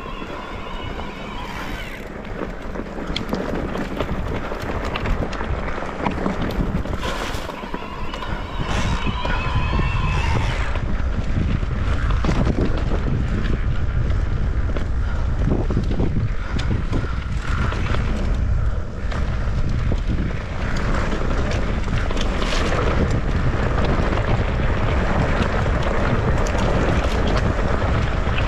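Wind buffeting the microphone of a mountain biker's camera during a ride, a heavy low rumble mixed with the rattle of the bike on the trail. It grows louder about ten seconds in.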